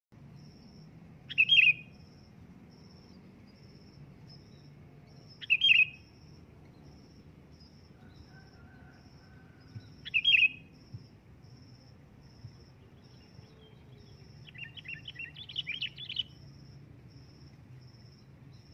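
Sooty-headed bulbul calling, as a lure call: three loud, short calls about four seconds apart, then a longer run of quick chattering notes near the end. A faint, evenly repeating high pulse runs underneath.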